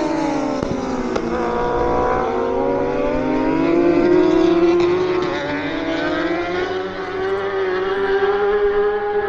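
Honda CBR1000RR-R Fireblade superbike engine running at high revs on track. Its pitch falls at first, climbs over the next few seconds, dips about halfway through and climbs again near the end.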